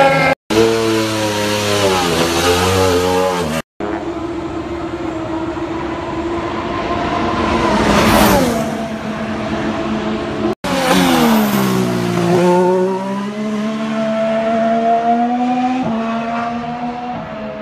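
Formula 1 cars' turbocharged 1.6-litre V6 hybrid engines running at speed on track, heard in several short clips: the engine note rises and falls through gear changes and corners. About eight seconds in, one car passes close at full speed, loudest there, and its pitch drops as it goes by.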